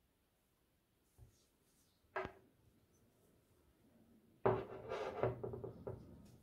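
Glass perfume bottle and its cap being handled and set down on a table: a light click, a sharp knock a little over two seconds in, then a louder clatter and scraping that starts suddenly about four and a half seconds in and lasts over a second.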